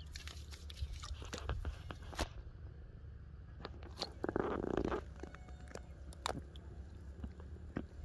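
A freshly caught orange fish being handled and pressed down by hand on wet mud: scattered wet clicks and crunchy squelches, loudest in a short rustling, scraping burst about halfway through, over a low steady rumble.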